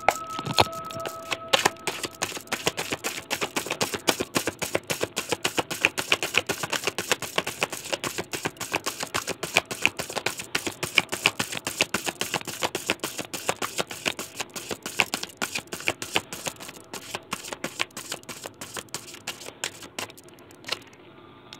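A deck of tarot cards being shuffled by hand: a long, dense run of quick card clicks and slaps, several a second, thinning out near the end.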